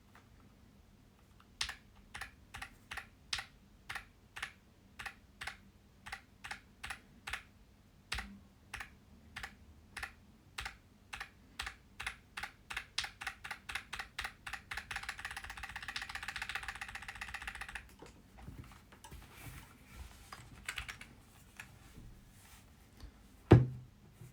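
Keychron Q6 HE full-size aluminium keyboard being typed on, its magnetic Hall-effect switches giving soft, quiet clacks. Single keystrokes come about twice a second, then speed up into a few seconds of fast continuous typing, then slow to scattered presses. A single loud thump comes near the end.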